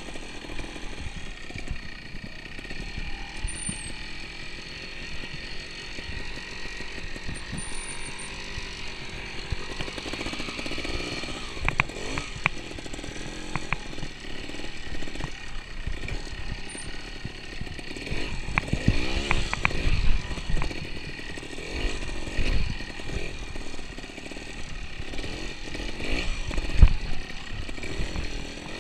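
Trials motorcycle engine running at low revs, blipped up and down in short rises as the bike picks its way over logs and rocks, with a few sharp knocks as the tyres and frame strike the obstacles.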